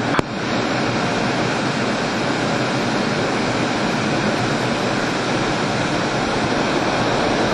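Steady rushing noise of a MiG-29UB jet in flight, airflow and engine noise heard over the cockpit's open intercom microphone. It comes in abruptly and holds at an even level.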